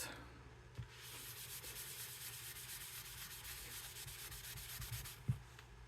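Melamine sponge scrubbing the printer's plastic casing: a faint, steady rubbing that starts about a second in and stops near the end, with a light knock as it starts and another as it stops.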